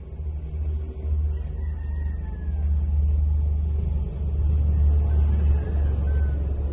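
Wind buffeting the microphone: a loud, uneven low rumble that swells and dips in gusts. Faint distant bird calls rise and fall about a second and a half in and again near the end.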